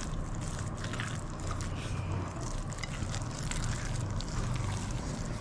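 Wooden spoon stirring thick chocolate chip cookie dough in a glass bowl, with soft wet scraping against the glass, over a steady low hum.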